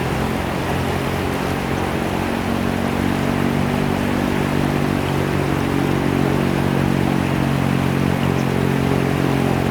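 River water rushing and splashing steadily. A steady low hum of several pitches runs under it, growing stronger about three seconds in.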